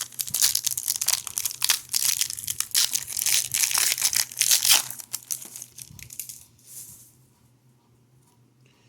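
A hockey card pack wrapper being crinkled and torn open, a dense crackling that thins out and dies away about seven seconds in.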